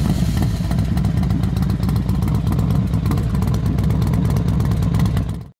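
Motorcycle engine running steadily just after starting, with a fast low pulsing; it cuts off abruptly near the end.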